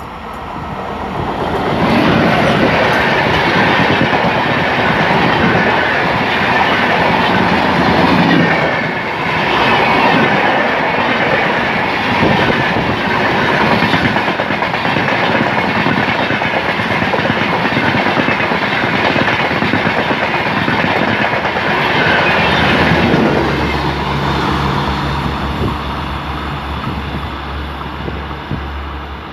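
A diesel-hauled express train passing at speed: the locomotive comes up loud within the first two seconds, then the coaches run by with a steady rattle and clickety-clack of wheels over the rail joints. At about 23 seconds it gives way to a quieter steady low hum.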